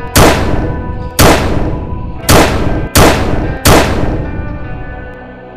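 Five loud, sharp bangs, each with a short ringing tail: the first three about a second apart, the last two closer together. They sound over quiet background music.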